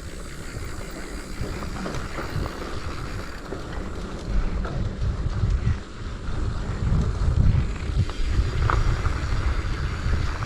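Wind buffeting the microphone over the low rumble of a mountain bike rolling along a dirt trail; the rumble grows louder about halfway through.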